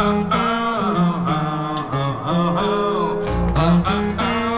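Blues song with plucked guitar and sustained bass notes, a bending melodic line weaving over them, played through a Mark Audio Alpair full-range driver in a back-loaded horn cabinet.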